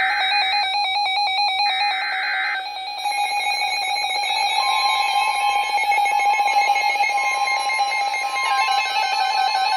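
Many NOAA weather radios going off at once for a severe thunderstorm warning. Near the start come two short buzzy data bursts of the SAME alert header. Then, from about three seconds in, the radios' alarms sound together: a layered chorus of steady and pulsing beeps at different pitches over the broadcast's long steady warning tone.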